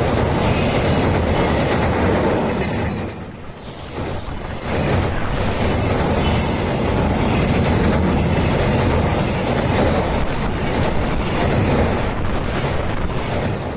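Freight train hauled by a JR Freight EF210 electric locomotive passing close by. The wagons run by continuously, with a short lull about three to four seconds in.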